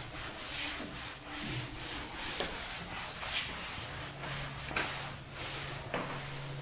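Irregular scratchy writing strokes, with a steady low hum joining about two-thirds of the way through.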